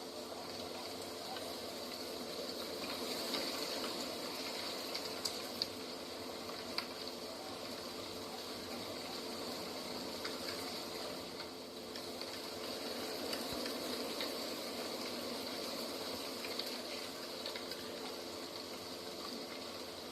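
Steady rushing outdoor ambience, with a few faint ticks.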